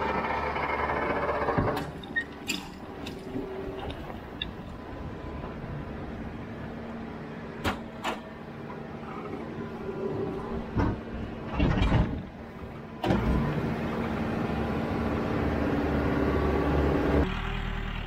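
Diesel engine of heavy farm equipment running steadily, with a scatter of sharp knocks and clanks; the engine gets louder about 13 seconds in.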